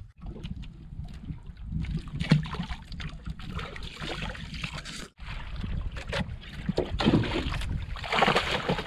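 Wind buffeting the microphone on a small outrigger boat, with water splashing against the hull, loudest near the end as a hooked fish is pulled up thrashing beside the boat, and a few sharp knocks on the boat.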